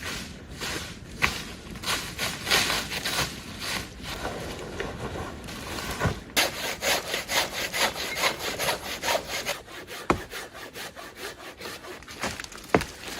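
Hand saw cutting through wood in repeated back-and-forth strokes that grow quicker about halfway through, with a couple of sharp knocks near the end.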